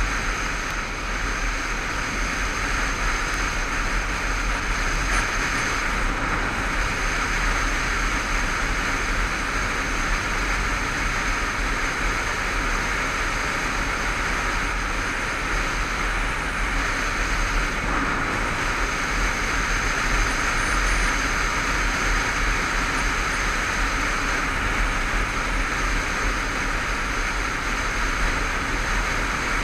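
Honda CBF500 parallel-twin motorcycle at a steady cruise: wind rushing over the microphone, mixed with engine and road noise, at an even level.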